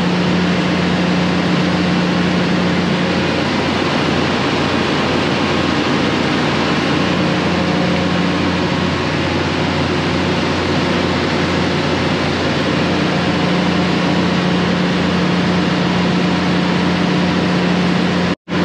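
Steady, loud engine-room drone of a ship's running auxiliary diesel engine and power pack, a constant hum with one steady tone. It is heard from inside the stopped main engine's open crankcase. The sound cuts out for a split second near the end.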